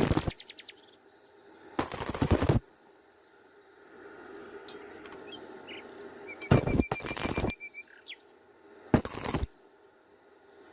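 Stick (SMAW) welding arc crackling in short bursts, struck and broken again and again, about four times, as when bridging a wide gap in stop-and-go fashion.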